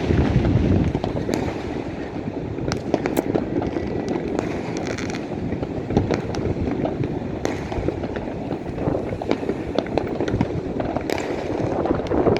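Many fireworks going off at once across a city: a continuous crackling din with sharp bangs every second or so, loudest in the first second.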